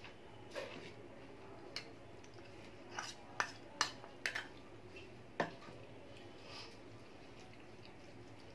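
Tableware clinking: a white bowl of dal and its spoon knocking against the plate as the dal is poured over rice. There are about eight sharp clinks, most of them bunched from about three to five and a half seconds in.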